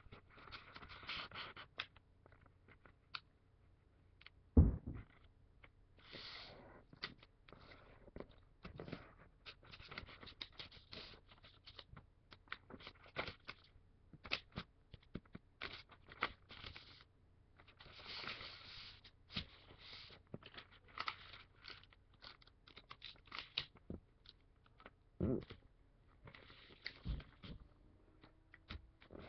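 Paper being folded and creased by hand on a tabletop: irregular rustling and scraping as the sheets are moved and the folds pressed down. There is a loud thump about four and a half seconds in and two softer knocks near the end.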